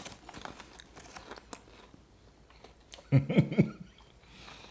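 Crisp crackling crunches of white cheddar cheese puffs being bitten and chewed, with light rustling from the snack bag, mostly in the first second and a half. A brief voiced sound from one of the tasters about three seconds in.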